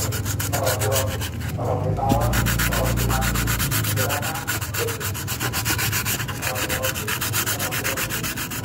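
Coarse sandpaper rubbed quickly back and forth by hand over the rusted, holed steel muffler of an old Honda Vario scooter, in fast even strokes. It is scouring off rust to clean the spot before the hole is patched with epoxy.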